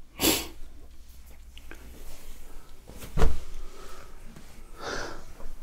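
Pillows and bedding being handled: soft fabric rustling with a few dull knocks, the loudest about three seconds in.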